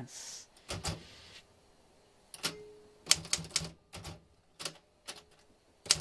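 1950s Royal HH manual typewriter being typed on: about a dozen sharp key strikes of the typebars against the platen, in an uneven rhythm with a quick run of strokes about three seconds in. It is a test of the freshly lubricated mechanism and new red-and-black ribbon.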